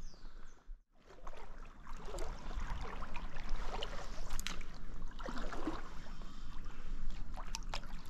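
Gusty wind buffeting the microphone over rushing stream water, a steady rumbling hiss with a few small clicks. The sound drops out briefly about a second in.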